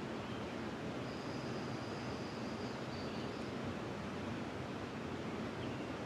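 Steady rushing of a flowing river. About a second in, a bird gives one long, thin, high note lasting about two and a half seconds.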